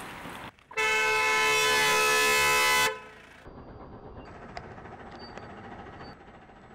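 A car horn sounding in one long, steady blast of about two seconds, starting just under a second in and cutting off sharply; faint street ambience follows.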